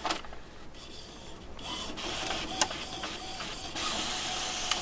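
Home all-in-one printer running a print job: a mechanical whirring of the paper feed and print carriage that grows louder after the first couple of seconds, with one sharp click a little past the middle.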